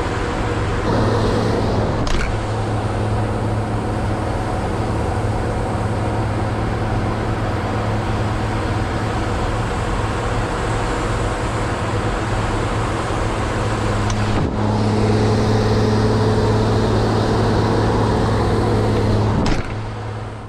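Engine of heavy equipment running at a steady hum. It steps up a little louder about fourteen and a half seconds in and drops back near the end.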